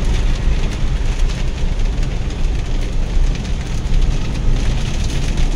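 Inside a car driving through heavy rain: a steady low rumble of engine and tyres on the wet road, with rain hitting the windscreen and roof.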